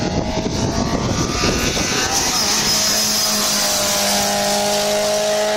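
Rally car engine approaching on a special stage, its note growing from about two seconds in and slowly rising in pitch as the car comes closer.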